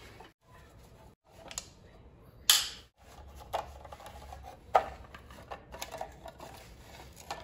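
T25 Torx screwdriver backing screws out of an electric scooter's aluminium frame by hand: a handful of scattered metallic clicks and clinks of tool and screws, the sharpest about two and a half seconds in.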